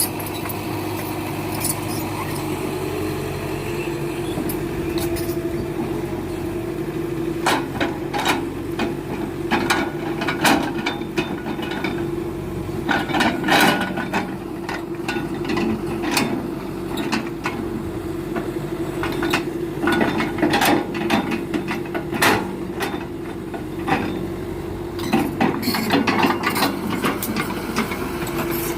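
Heavy diesel machinery, an excavator, running steadily, with a run of sharp, irregular knocks and clunks starting several seconds in, typical of rubberwood logs being handled.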